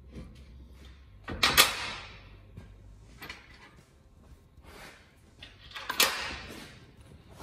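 A heavy bench vise knocked and slid across a metal bench top while being lined up for bolting, with two loud scraping clunks about a second and a half in and again near six seconds, and lighter handling noises between.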